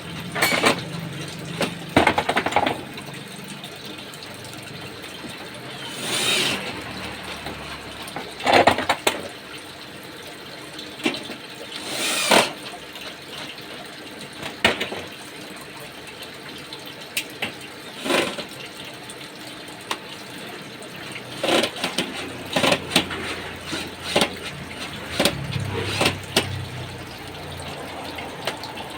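Intermittent knocks and clatter of hands and tools working on a washing machine, with a few short hissing bursts, over a steady background hum.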